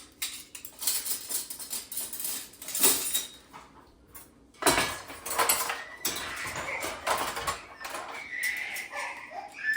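Dishes clattering and clinking as cups and plates are set into a dishwasher's racks, with a louder knock about halfway through.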